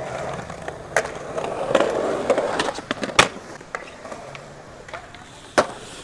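Skateboard wheels rolling over concrete with a grainy rumble, fading after about three seconds. Sharp impact clacks come about a second in, a louder one at about three seconds, and another near the end.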